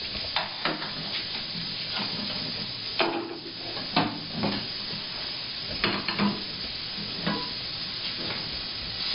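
Steady hiss from the stovetop, with a pressure cooker heating on a gas burner, broken by about eight sharp metallic knocks and clinks of pots and utensils.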